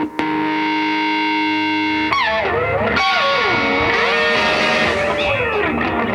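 Distorted electric guitar music: a held chord for about two seconds, then notes that slide down and back up in pitch.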